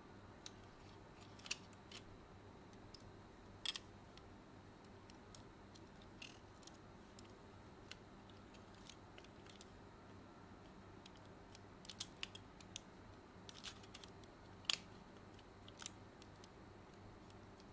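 Small sharp plastic clicks and taps as internal parts of a PS5 DualSense controller are fitted by hand and its tabs snapped into place. The clicks come scattered and sparse at first, then bunch up toward the end, the loudest about three-quarters through, over a faint low hum.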